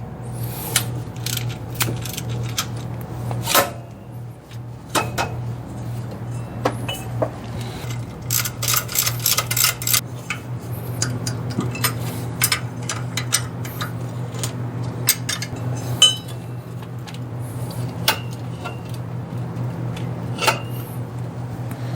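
Hand tools clinking and knocking against metal engine parts while components are unbolted, with a quick run of clicks about eight seconds in, over a steady low hum.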